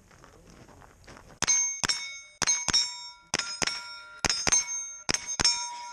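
Ten carbine shots in five quick pairs, starting about a second and a half in, each pair hitting a steel target plate that rings on after it.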